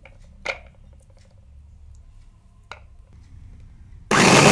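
A couple of light knocks as the electric chopper's glass bowl and lid are fitted, then about four seconds in its motor starts with a sudden loud burst as the blades begin mincing chunks of boneless mutton.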